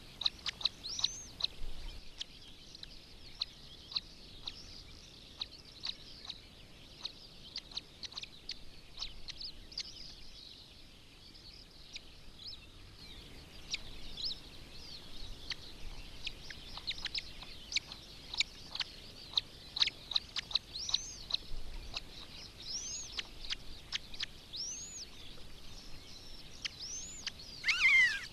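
Long-legged buzzard chicks giving many short, high peeping calls while being fed at the nest, with scattered light clicks. A louder falling call comes right at the end.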